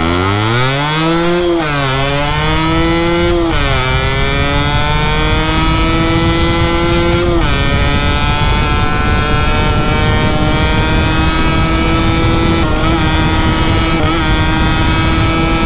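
Yamaha RXZ 135's two-stroke single-cylinder engine running through an expansion-chamber exhaust, accelerating hard through the gears. Its pitch climbs and drops back at each upshift, three times in the first eight seconds, then holds steady at a cruise.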